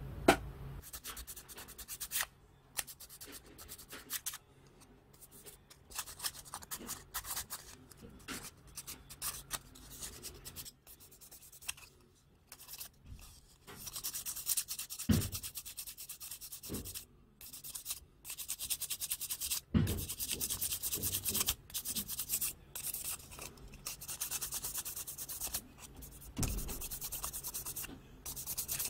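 Rapid back-and-forth strokes of a thin flat tool scraping and sanding along a plastic model-kit fairing part, in quick uneven runs with short pauses. A sharp click at the very start and a few soft knocks from handling the part.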